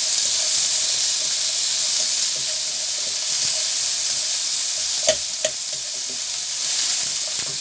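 Chopped onions and cashews sizzling in hot oil in a non-stick frying pan while a wooden spatula stirs them, the onions sautéing until soft. Two sharp knocks of the spatula on the pan come a little past the middle.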